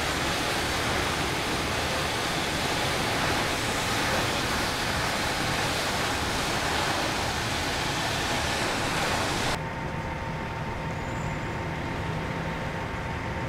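Compressed-air jet of a TYPHOON permeable joint excavator blasting sediment and chip rock out of paver joints: a steady, loud rushing hiss. About nine and a half seconds in it cuts off abruptly, leaving a quieter steady machine hum with a faint whine.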